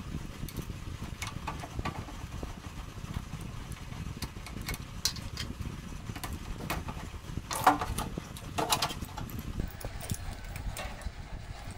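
Clicks, taps and clatter of metal parts and wires being handled while a microwave oven is stripped: a red wire and the high-voltage diode pulled off the steel chassis, then the wiring loom and transformer lifted out. There are scattered light clicks, two louder clatters a little under eight seconds and near nine seconds, and a steady low rumble underneath.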